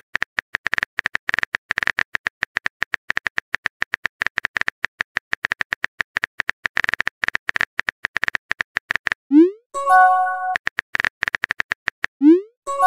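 Texting-app keyboard sound effect: rapid typing clicks for about nine seconds, then a quick rising swoop and a short electronic chime as the message is sent. A few more clicks follow, then a second swoop and chime near the end.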